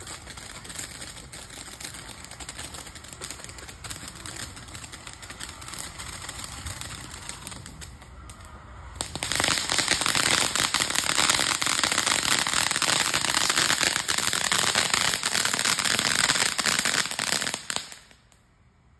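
Ground fountain firework spraying sparks, giving off a dense, rapid crackling with a hiss. About halfway through it turns much louder and denser, then it cuts off suddenly just before the end as the fountain burns out.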